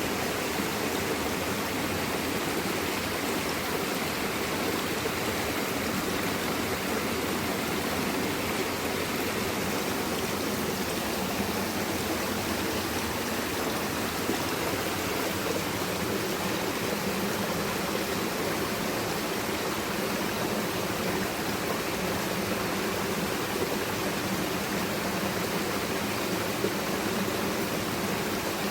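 Running water, a steady, even rush with no breaks or changes.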